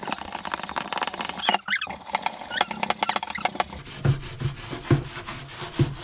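Kitchen sponge scrubbing the burnt, foamy underside of a frying pan coated in a baking-soda, citric-acid and dish-soap paste: a dense rasping hiss with short squeaks, turning in the last couple of seconds into steady back-and-forth strokes, about two a second.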